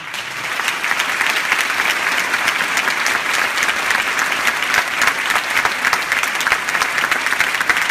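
Audience applauding: dense, steady clapping that breaks out suddenly and swells over the first second.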